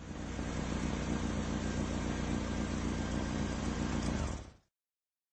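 An engine running steadily at idle, cut off suddenly a little over four seconds in.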